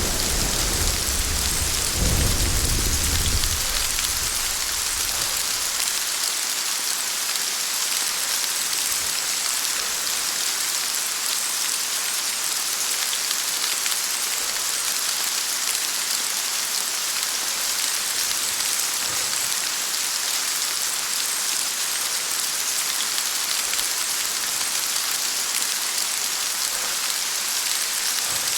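Heavy rain falling steadily in a thunderstorm, with a roll of thunder rumbling at the start, surging again about two seconds in and dying away within about five seconds.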